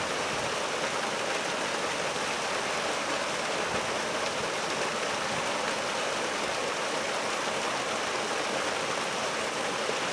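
A steady, even hiss of outdoor background noise, unchanging throughout with no distinct events.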